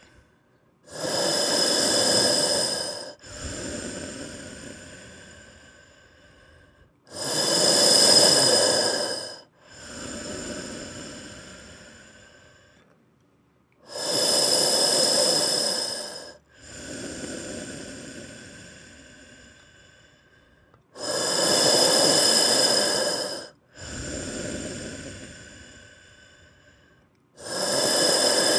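Slow, hissing hospital breathing, about one breath every seven seconds, five times in all. Each breath is a loud, whistly draw of about two seconds followed by a quieter breath that fades away.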